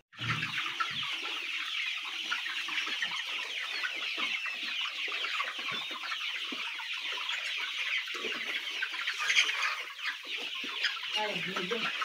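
A large flock of brown hens clucking and chirping all at once, a dense steady chatter of many overlapping calls.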